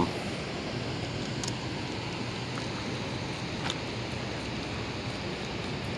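Steady rushing noise of fast, turbulent tailwater below a hydroelectric dam running its generators, with two faint ticks in the middle.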